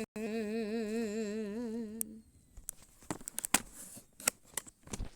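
A person humming one held note for about two seconds, its pitch wavering up and down, then a run of sharp clicks and taps.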